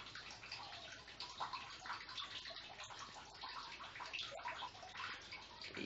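Faint, steady rushing background noise, with faint irregular flickers in it.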